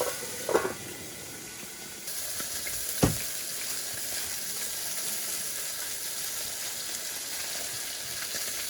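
Food sizzling as it fries, a steady hiss that grows a little stronger about two seconds in, with a single sharp click about three seconds in.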